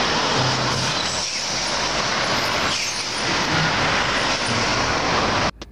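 Road traffic passing close by, a semi-trailer tanker truck and cars among it: steady tyre and engine noise that cuts off suddenly near the end.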